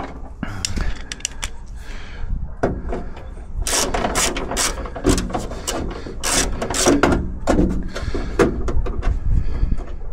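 Hand screwdriver working screws in a Jeep door: a run of irregular metallic clicks and short scrapes as the driver turns and catches.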